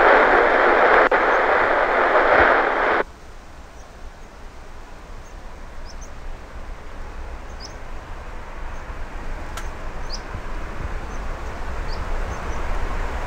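Airband radio scanner hissing for about three seconds after a tower transmission, then cutting off suddenly as the squelch closes. A faint, low outdoor rumble follows and slowly grows louder, with a few faint high bird chirps.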